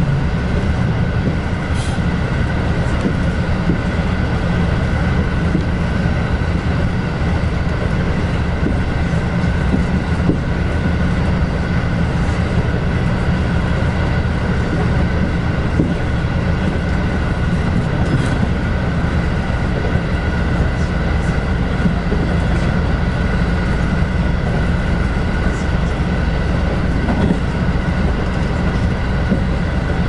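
Passenger train running at cruising speed, heard from inside the car: a steady rumble of wheels on rail, with a faint steady whine above it and a few light clicks.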